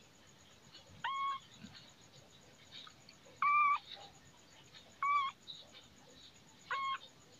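Kitten mewing: four short, high mews, each holding one pitch, spread across the few seconds.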